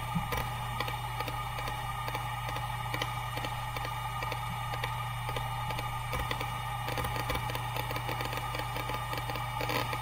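Hitachi Deskstar 7K80 hard disk drive spinning at 7200 rpm on fluid-dynamic bearings: a steady low hum with fainter whine above it, broken by quick irregular ticks of the heads seeking.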